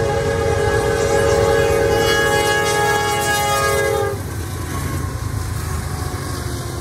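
Norfolk Southern AC44C6M diesel locomotive 4422 sounding its air horn in a steady chord for the grade crossing. The horn cuts off suddenly about four seconds in, leaving the lower rumble of the locomotives passing close by.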